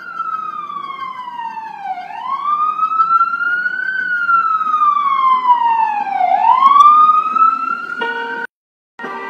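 A siren-like wail, its pitch sliding slowly down and then back up, twice over, before cutting off abruptly near the end. After a short gap, music begins.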